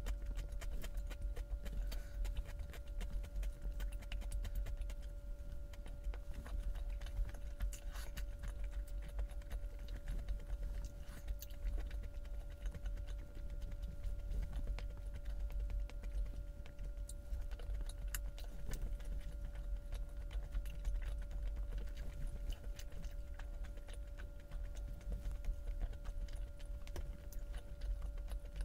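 Close-miked eating sounds: an irregular stream of small clicks and smacks of chewing and handling food, over a faint steady hum.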